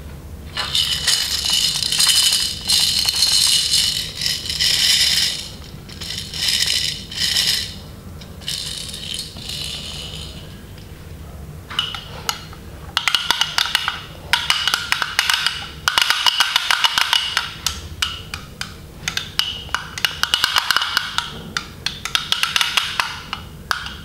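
Plastic baby rattles shaken by hand in bursts, a bright rattle with a ringing high note. After a short pause about ten seconds in, a second, clickier rattle is shaken.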